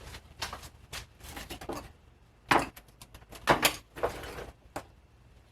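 Hard plastic 3D-printed parts being handled and set down on a work surface: a string of separate clicks and knocks, the loudest about two and a half seconds in.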